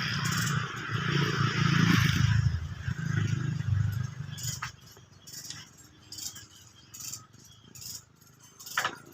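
A motor vehicle engine passes and fades out about four seconds in. It is followed by scattered light clinks and taps.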